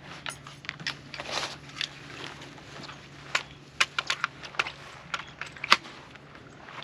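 Irregular sharp metallic clicks and taps of a rifle and its magazine being handled, about a dozen, with the loudest click near the end.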